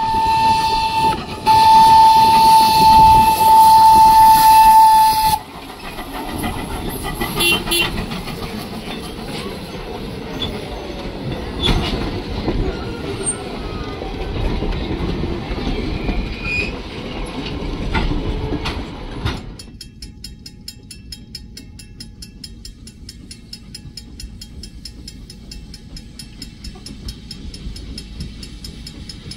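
Steam locomotive whistle sounding for a grade crossing: a short blast, then a long steady one of about four seconds. The train then rolls past close by with a heavy rumble and the clatter of coach wheels over rail joints. Near the end, after a cut, a faint fast even ticking.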